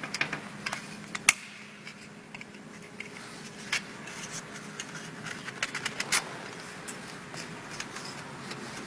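Irregular light clicks, taps and scrapes of parts being handled, over the steady low hum of a machine.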